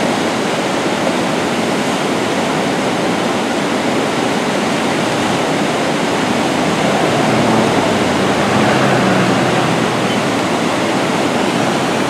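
Muddy floodwater of a swollen river rushing steadily past concrete pillars, a loud continuous roar of water that swells a little midway.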